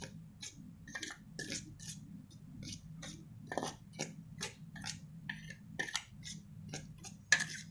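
Spoon stirring dry flour in a stainless steel plate: a quick, irregular run of short scrapes against the metal, about three a second.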